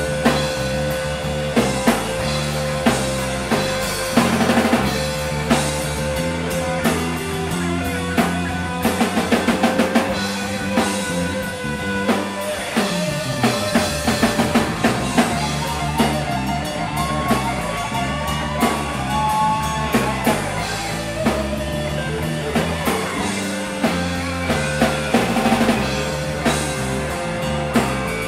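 Rock band playing an instrumental passage: an electric guitar lead with long held and bent notes over a drum kit and bass guitar.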